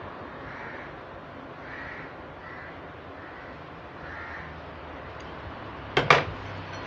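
Crows cawing faintly in the background, a few separate calls over a steady hiss, then two sharp knocks close together about six seconds in.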